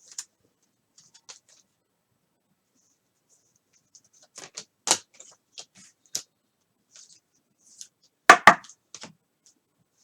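Trading cards being handled and flipped through: scattered short scrapes and clicks of card stock, with a louder double snap about eight seconds in.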